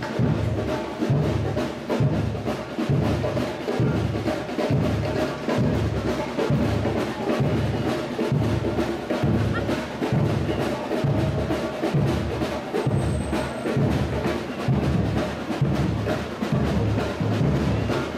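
Samba percussion band (bateria) playing: deep surdo drum beats about once a second, under dense, fast higher percussion.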